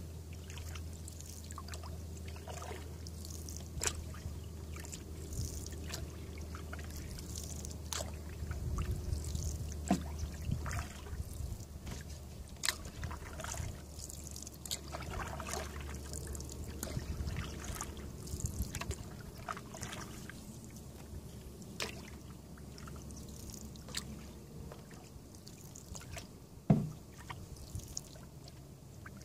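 Canoe paddling on calm water: the paddle dipping, dripping and trickling in an uneven run of small splashes, over a low rumble that fades out about two-thirds of the way through. One sharp knock near the end is the loudest sound.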